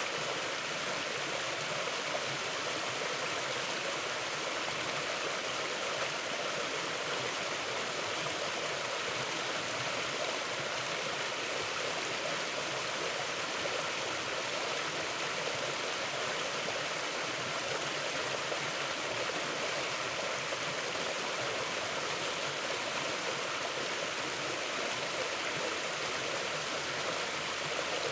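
A river flowing steadily over rocks, with an even, unbroken rush of water.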